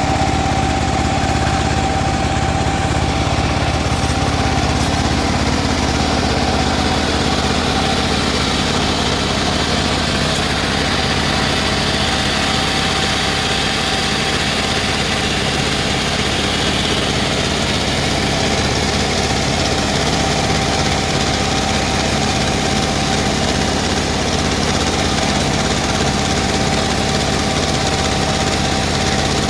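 Homemade bandsaw running steadily: an even, engine-like drone with a constant whine.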